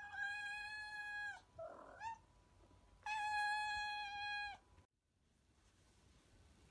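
A cat meowing twice, each a long, drawn-out call of about a second and a half held on one pitch and dropping at the end, with a short rising chirp between them.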